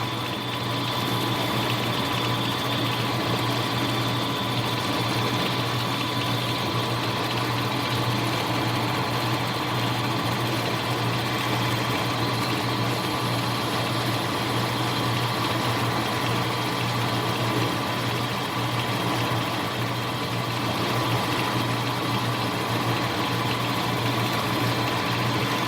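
Metal lathe running steadily with the carriage under power feed, taking a turning cut on a small plastic part: an even motor hum with a steady gear whine.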